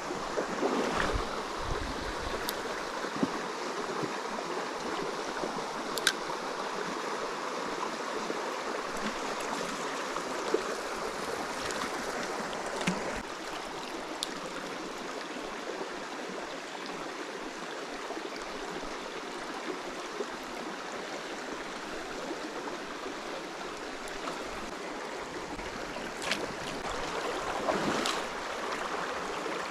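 Stream water flowing in a steady rush, with a few brief clicks and knocks.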